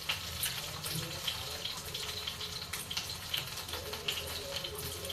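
Hands mixing and mashing fried dried chillies, salt, mustard oil, lemon juice, cumin powder and chopped onion together in a bowl: a steady run of small, irregular wet clicks.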